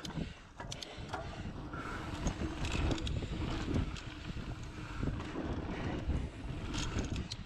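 Mountain bike rolling along a dirt singletrack: tyres rumbling over the dirt, and the bike clicking and rattling over bumps, with wind rushing over the microphone.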